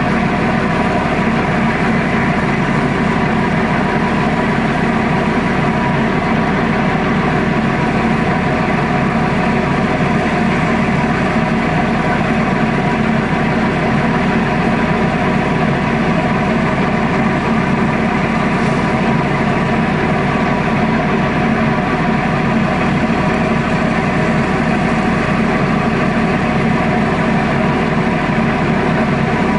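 Tugboat's diesel engine running steadily under load while towing, a loud, unchanging drone with steady tones.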